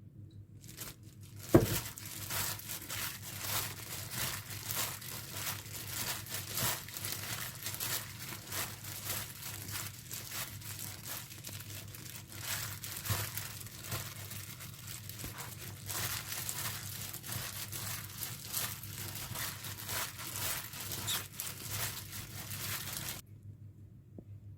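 Continuous crinkling and rustling, a dense run of small crackles, opening with a sharp knock about a second and a half in and cutting off suddenly near the end.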